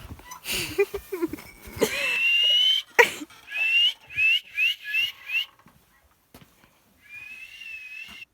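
A person whistling to call a cow: one long whistle, then a run of five short rising whistles, then another long, slightly wavering whistle near the end. A sharp click about three seconds in is the loudest moment.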